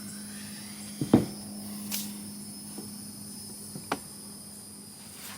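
Used engine parts being handled and set down: a few short knocks, the loudest about a second in, over a steady low hum and a high-pitched background tone.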